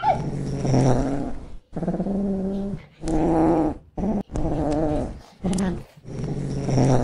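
A domestic cat growling in a string of low, pitched yowls, each about a second long, with short breaks between them.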